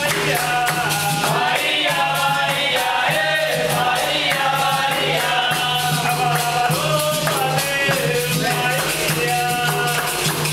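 Live capoeira roda music: voices singing a chant together over a berimbau, an atabaque drum and hand clapping, with a steady beat.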